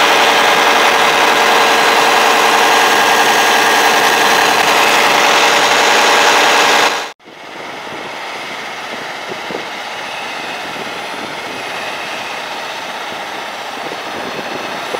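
Large John Deere tractor's diesel engine running loud and steady, heard close up with many steady whining tones. About seven seconds in it cuts abruptly to a quieter, more even tractor engine sound as the tractor pulls a tillage implement across the field.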